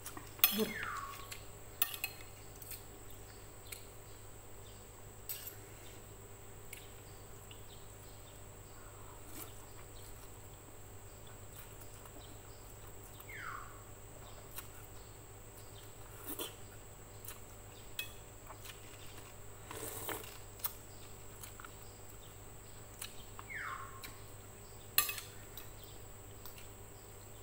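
Eating sounds: a spoon and fork clinking against a plate now and then, the loudest clink near the end, and three short slurps of rice vermicelli noodles, each falling in pitch.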